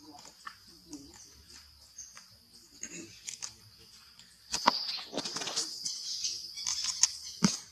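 Outdoor ambience with a steady high insect buzz and faint squeaks. From about four and a half seconds in there is a louder stretch of rustling broken by a few sharp clicks, as young macaques move among leaves and plants.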